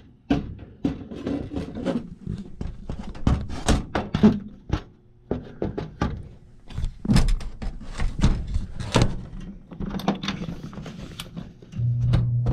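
A run of knocks and thunks from handling, then near the end a steady low hum starts: the furnace's draft inducer motor coming on at a call for heat.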